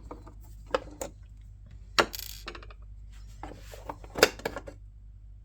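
Sharp clicks and knocks of small screws and hard plastic and metal parts being handled as the water inlet valve is unscrewed and pulled out of the coffee machine. The loudest knocks come about two seconds in and in a cluster about four seconds in.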